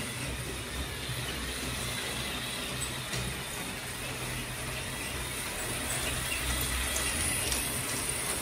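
LEGO trains running on plastic track: the wheels give a steady rolling rattle over the hum of the train motors. It grows louder in the second half as a train passes close.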